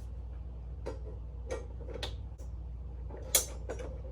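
Scattered light clicks and knocks of metal support poles being handled and fitted together on a snap-in prop frame, with one sharper knock about three and a half seconds in.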